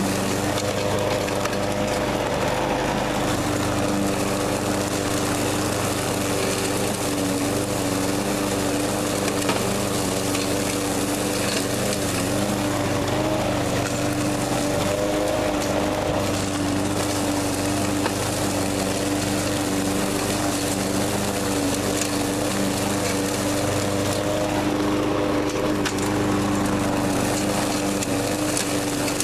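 Troy-Bilt TB360 walk-behind lawn mower running steadily while mulching dry leaves, its engine tone held even over the noise of the leaves being shredded under the deck.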